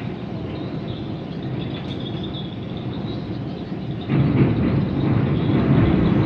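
A small tugboat's engine running steadily, becoming clearly louder about four seconds in.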